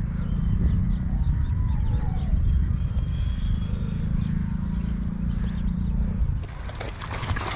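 Steady low rumble with faint high chirps over it. Near the end it gives way to a hiss.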